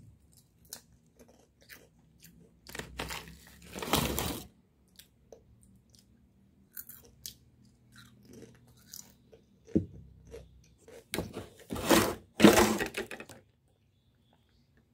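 Close-up crunching and chewing of Piattos potato chips: a run of crisp crackles, with a few louder bursts about a third of the way in and again near the end.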